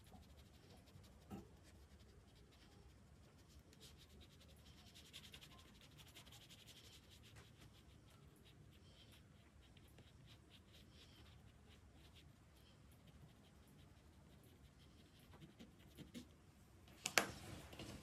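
Faint scratching of a drawing tool moving on paper in light strokes, with a sharp tap near the end as the drawing tools are swapped.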